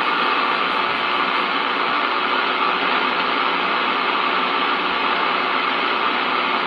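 Realistic DX-300 shortwave receiver giving out steady static hiss on a lower-sideband 80-metre ham frequency, with no station transmitting.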